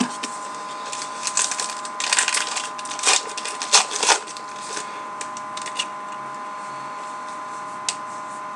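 A paper trading-card pack being torn open and crinkled, with cards shuffled in the hands: irregular rustling for the first four seconds or so, then a few faint ticks. A steady tone hums underneath.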